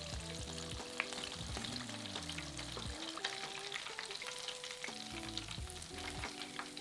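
Flour-coated, buttermilk-marinated chicken pieces deep frying in hot vegetable oil: a steady crackling sizzle with scattered sharp pops. Soft background music plays underneath.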